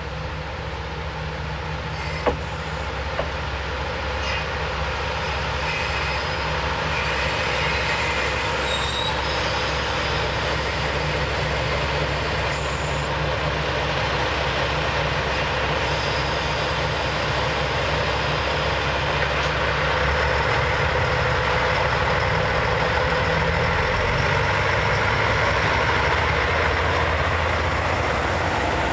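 Yufuin no Mori diesel express train pulling slowly alongside, its diesel engines running with a steady low hum and wheels running on the rails, growing louder as the cars come past. A sharp click about two seconds in and a smaller one a second later.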